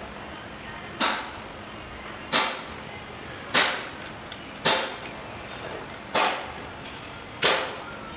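Six sharp metallic knocks, about one every second and a quarter, each with a short high ring, like metal striking metal.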